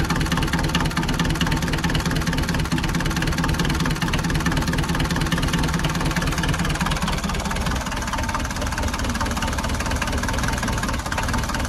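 Perkins 4.108 four-cylinder diesel engine idling steadily, a cold engine just after a flame-heater glow plug start.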